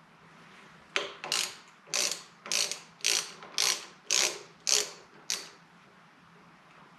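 Hand ratchet wrench clicking through about nine short strokes, roughly two a second, as the clamp bolts of a motorcycle's front brake master cylinder are snugged onto the handlebar; it stops a little past five seconds in.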